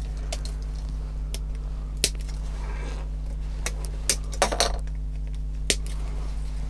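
Hard plastic clicks and clinks as a grey plastic model-kit sprue is handled and parts are snipped from it with side cutters: a handful of sharp ticks a second or two apart, the loudest cluster a little past four seconds in, over a steady low hum.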